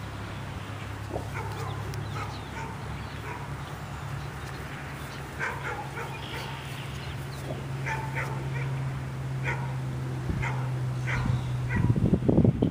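A string of short, high animal calls, one every half second or so, over a steady low hum, followed near the end by loud rough rumbling.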